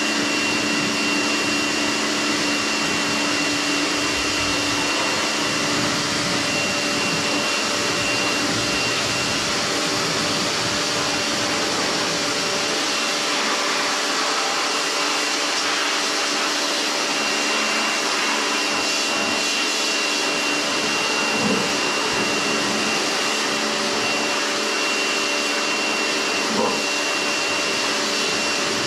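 Kärcher electric pressure washer running steadily, its high-pressure water jet spraying and rinsing a motorcycle.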